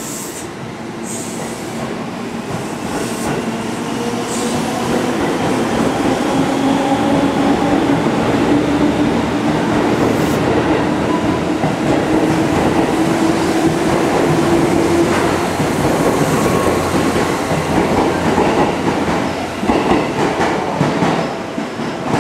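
Seibu 4000 series electric train pulling out of a station and gathering speed. The motor whine rises in pitch as it accelerates and the sound builds over the first several seconds, with wheels clacking over rail joints as the cars pass.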